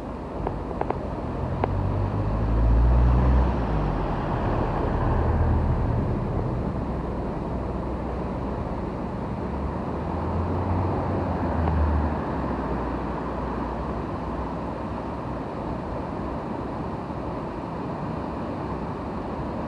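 Flooded burn in spate rushing over rapids: a steady, loud roar of torrent water. Two louder low rumbles swell up about two seconds in and again about ten seconds in.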